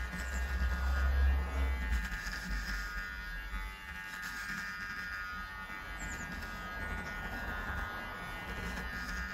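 Kemei electric beard trimmer with a T-blade and guide comb buzzing steadily as it cuts through beard stubble, with a low rumble in the first two seconds. Background music plays under it.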